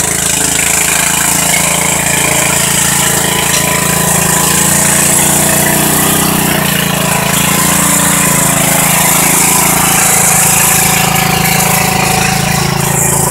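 Riding lawn mower engine running steadily under load while bogging through mud, its pitch shifting a little about halfway through.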